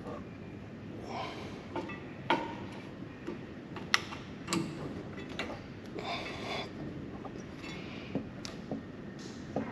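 Irregular metallic clicks, knocks and short scrapes of tools and brake parts being handled and fitted during a brake caliper and pad change.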